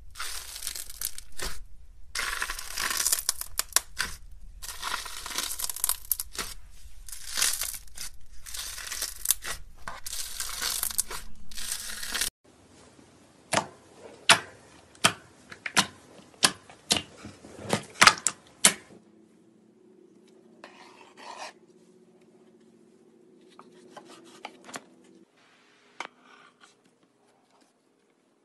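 Hand pressing and squeezing foamy, bubble-filled slime: dense crackling and fizzing in repeated bursts. About twelve seconds in, it switches to fingers pressing thick pink slime, giving a run of sharp pops and clicks, then only faint rubbing.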